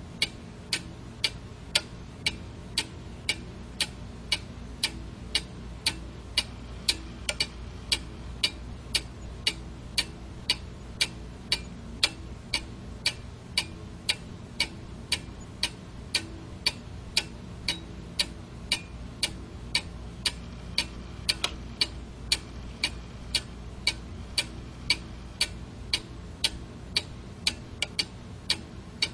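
Quartz analog alarm clock ticking steadily, sharp even clicks at about two a second, over a faint low hum.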